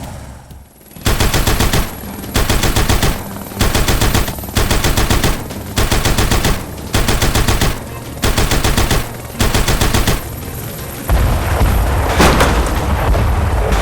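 Rapid rattling fire like a machine gun, in about eight short bursts a second or so apart, then one longer, louder burst near the end.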